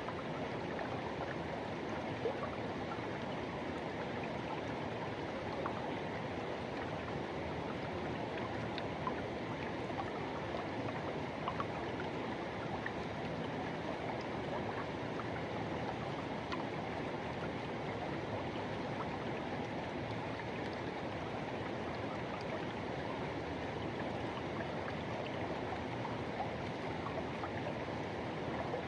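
Forest river rushing steadily over rocks, with small splashes now and then.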